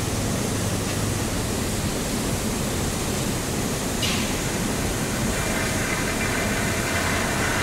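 Steady industrial noise of a steelworks shop floor, a dense even hiss over a low hum. A short sharp click comes about four seconds in, and a faint high whine joins from about five and a half seconds.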